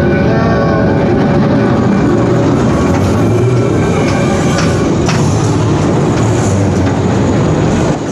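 Roller coaster train rolling along its steel track: a steady, loud rumble of wheels and wind noise. A single sharp click comes about five seconds in.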